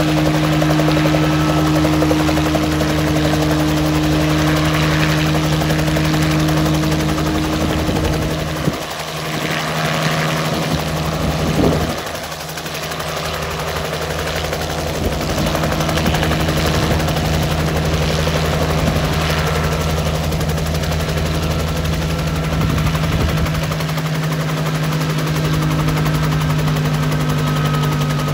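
Bell 47J Ranger helicopter settling from a low hover onto the ground and then running there. Its piston engine keeps going and its two-blade main rotor keeps turning with a steady, rapid chop.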